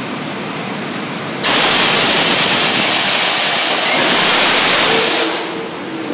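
Ashross RUMig rail-car unloader discharging coal from a hopper car, a steady rushing noise. About a second and a half in, a much louder hiss cuts in sharply, holds for about four seconds and then fades.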